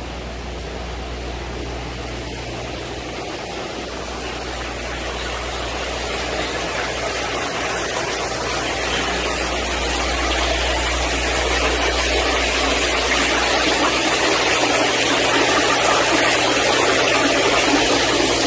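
Splashing water from a tiered fountain falling into its pool: a steady rush that grows gradually louder, over a low steady hum.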